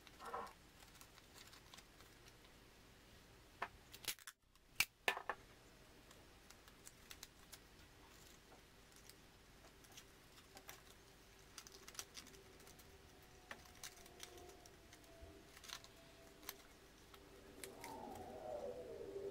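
Faint handling of folded paper: light taps and rustles as paper cube sections are twisted and flipped by hand, with a few sharp clicks about four to five seconds in.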